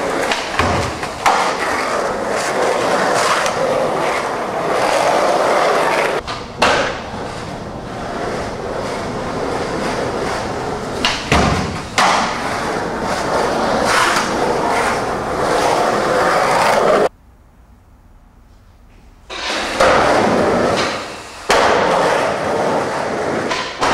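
Skateboard wheels rolling over a smooth hard indoor floor, with sharp clacks of the board striking the floor several times. The rolling cuts out for about two seconds partway through, then resumes.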